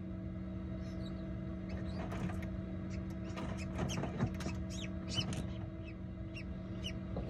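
A hatching silkie chick peeping: many short, high peeps, most falling in pitch, coming irregularly. Under them runs a steady low hum.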